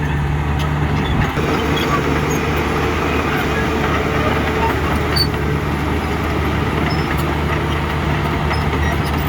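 Heavy diesel engine of construction machinery running steadily at an even pitch.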